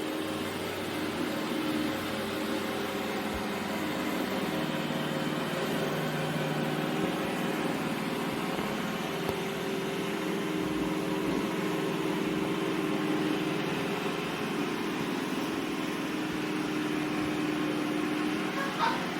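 iRobot Roomba j7+ robot vacuum running: a steady motor whir and hum whose pitch shifts slightly now and then, with a short click near the end.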